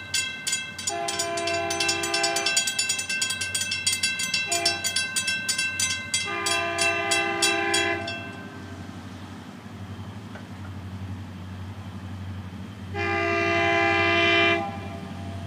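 A road-crossing warning bell dinging steadily and stopping about eight seconds in, while an approaching locomotive sounds its multi-note air horn: a long blast, a short one, another long one, and a final, louder long blast near the end.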